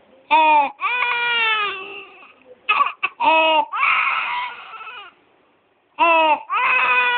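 Baby crying in a run of short, pitched bursts, with a harsh, noisy breath about four seconds in. The crying is broken by a pause of about a second before it starts again. The noisy breaths are stridor, the sign of a narrowed upper airway.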